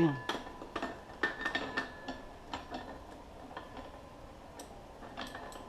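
Light metallic clicks and taps with brief ringing as a metal part is worked onto the axle of a pedal quadricycle, a dozen or so scattered clicks, busiest in the first two seconds and again near the end.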